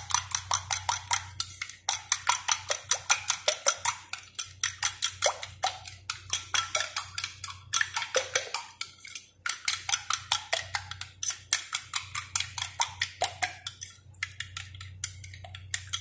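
A spoon beating a batter in a ceramic bowl, clicking rapidly against the bowl at about six strokes a second in runs with brief pauses.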